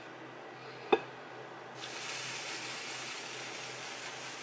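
A single sharp knock of a plastic spatula against the cookware about a second in, then a steady sizzling hiss from the hot frying pan on the burner.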